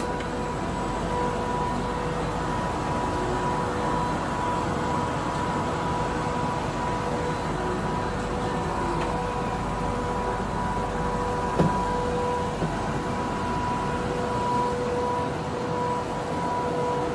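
Richpeace four-side automatic sewing machine running: a steady mechanical hum with a constant whine over it, and a single sharp click a little past the middle.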